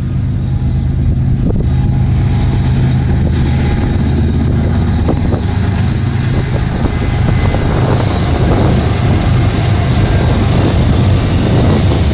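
BNSF GE diesel locomotives, led by an ES44C4, approaching and passing close with a steady low engine hum, joined from about halfway by a dense rumble of wheels on rail as the double-stack freight rolls by. Wind buffets the microphone.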